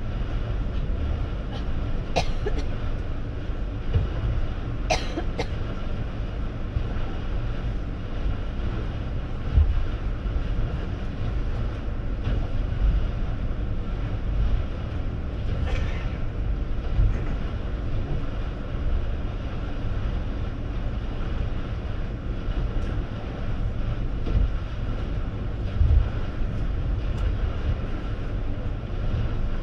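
Steady low rumble of a passenger ferry under way, engines and hull droning, with a few brief clicks and knocks.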